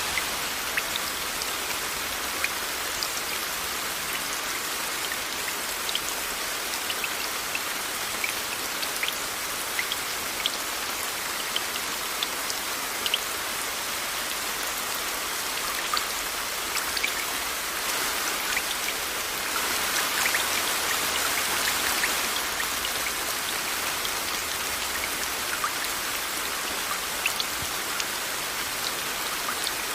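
Steady rain mixed with a white-noise hiss, with individual drops ticking throughout. The rain swells louder for about three seconds about two-thirds of the way through, then settles back.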